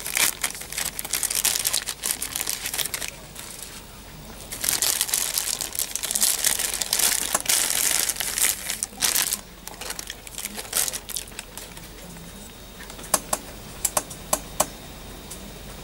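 Clear plastic bag crinkling in long rustling stretches as it is worked off a camera lens, followed by a few sharp clicks near the end.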